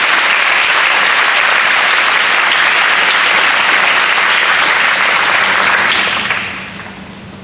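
An audience applauding loudly and steadily, dying away near the end.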